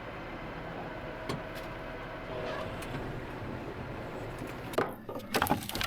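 Farm tractor engine running steadily while working with its loader bucket, with a few sharp knocks near the end.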